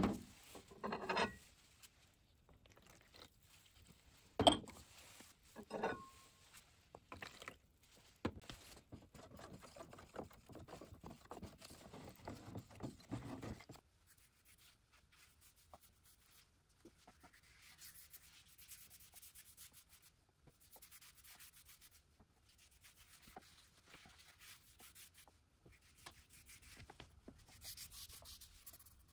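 A few sharp knocks and clinks, one with a brief ring, as containers are handled, then faint, irregular scrubbing strokes of oxalic acid solution being worked onto bare sanded wood.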